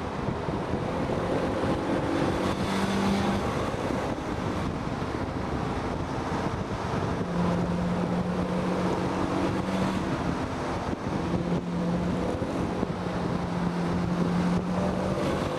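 Wind rushing over the microphone of a moving car, with a car engine's steady hum underneath that fades in and out, most clearly in the second half.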